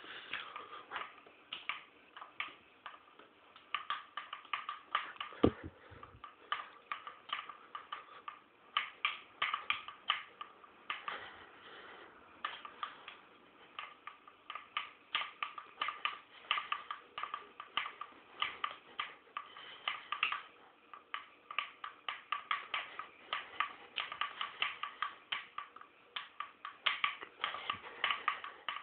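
Rapid, irregular light mechanical clicking and ticking, several clicks a second in uneven bunches, with one louder knock about five and a half seconds in.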